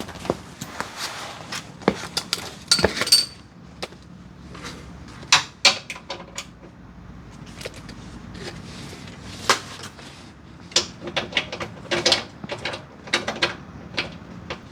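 Scattered metallic clinks, clicks and knocks of hand tools and steel suspension hardware being handled while a control arm bolt is worked out, with a brief ringing clank about three seconds in.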